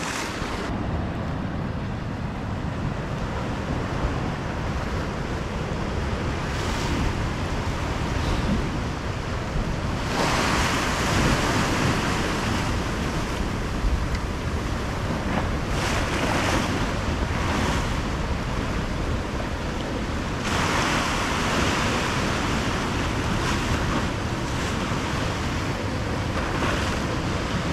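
Ocean swell surging and washing over the rocks, with a steady low rumble of wind on the microphone. The wash swells louder several times, about ten seconds in and again around sixteen and twenty seconds.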